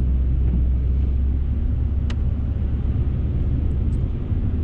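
A car running, heard from inside the cabin on a drive over wet roads: a steady low rumble of engine and road noise. A short sharp tick comes about two seconds in.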